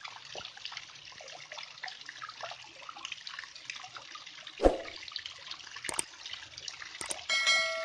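Water splashing and trickling steadily over rocks. A dull thump comes about halfway through, then two clicks and a short ringing chime near the end.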